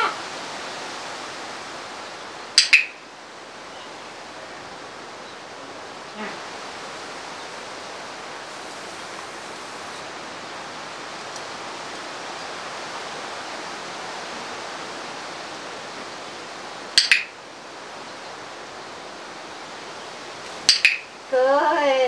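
Hand spray bottle squirting a fine mist at a parrot: three short hissing squirts, about 3 s in, about 17 s in, and a quick double squirt near the end, over a steady background hiss.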